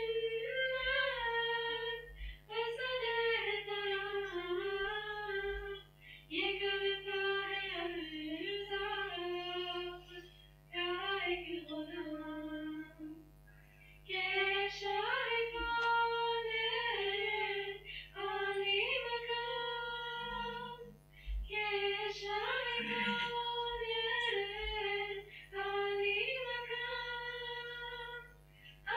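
An Urdu nazm sung by female voices with no instruments, in long held phrases broken by short pauses for breath.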